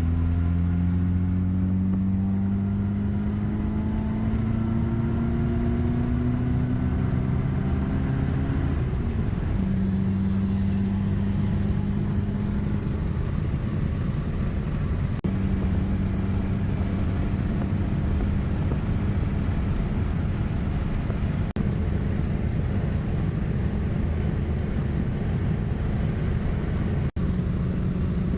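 Morris 1100 S engine and road noise while driving. The engine pitch climbs steadily for about eight seconds under acceleration, drops at a gear change, then holds steady at cruising speed.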